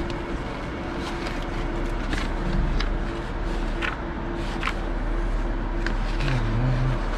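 A stack of paper order sheets rustling and crackling in short bursts as they are leafed through by hand, over a steady machine hum.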